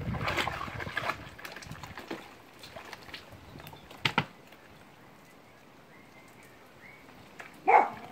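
Water splashing and sloshing in a plastic tub as capuchin monkeys bathe in soapy water, busiest over the first two seconds. About four seconds in there is a sharp double knock, then it goes quiet until a brief loud sound near the end.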